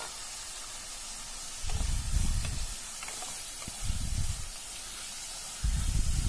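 Sliced tomatoes and onions sizzling in ghee and oil in a pressure-cooker pot, with a steady hiss. They are stirred with a wooden spatula, and three louder low stretches of about a second each come about two, four and six seconds in.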